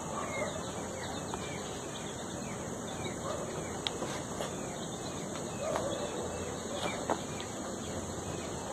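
Insects trilling steadily in a high, even band, with faint short bird chirps repeating and a few soft clicks.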